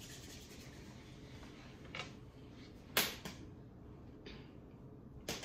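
A few short, sharp clicks or taps spread across a few seconds, the loudest about three seconds in and a last one near the end.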